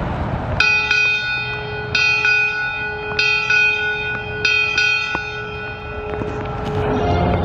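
A brass ship's bell struck eight times in four pairs, the tones ringing on and overlapping: eight bells rung out in honor of the dead.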